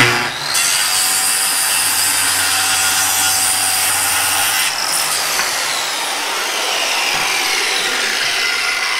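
Milwaukee corded circular saw with a Freud Diablo blade starting up and ripping a 45-degree bevel cut through a board. Partway through, the cut ends and the blade's whine falls steadily in pitch as it spins down.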